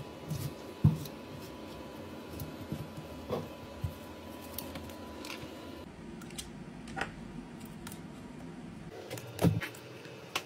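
Scattered small clicks and taps as an iPad Pro's cracked screen is pried up and lifted from its aluminium frame, over a steady room hum. There is a sharper knock about a second in and a few thumps near the end.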